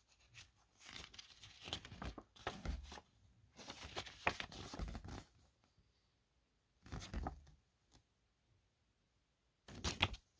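Paper rustling and crinkling as the glossy pages of a CD booklet are turned and handled, in several short spells with quiet gaps between them, with a sharper rustle near the end as a paper insert is handled.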